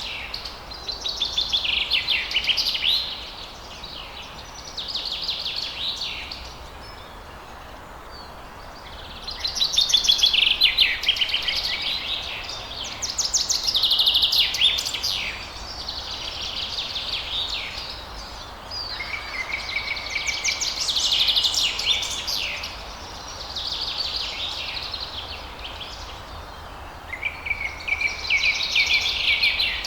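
A songbird singing phrase after phrase. Each phrase is about two seconds of quick trilled notes, and some open on a held whistle. Short pauses fall between the phrases, over a steady hiss.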